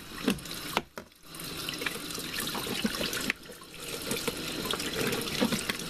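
Water rushing into the tub of an Arksen 11-pound portable washing machine as it fills for a rinse cycle, with a brief drop-out about a second in.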